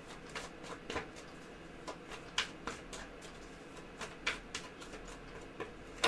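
Tarot cards being handled and laid down: a dozen or so light, irregular clicks and soft slaps, with a sharper one about two and a half seconds in and another at the very end.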